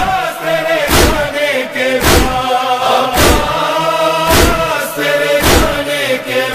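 Male chorus holding a wordless lament melody in a Shia noha, over a steady matam chest-beating thump about once a second.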